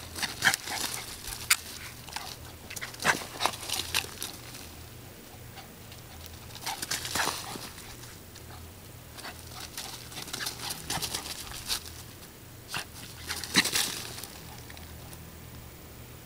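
Dry fallen leaves crunching and rustling in irregular crackly bursts as a small dog runs and scrabbles through them.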